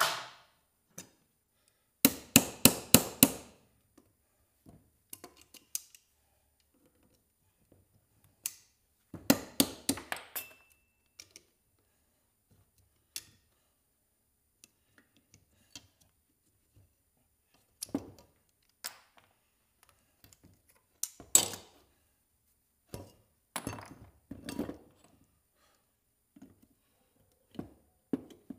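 Hand tool striking metal scrap: two quick runs of about six blows each, about four a second, then scattered single knocks and clinks of metal pieces being handled.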